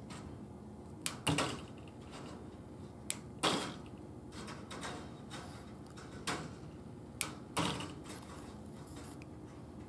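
Multitool pliers snipping and working chicken wire. Each time there is a sharp click followed by a short scraping rattle of wire, three times: about a second in, about three and a half seconds in, and about seven and a half seconds in.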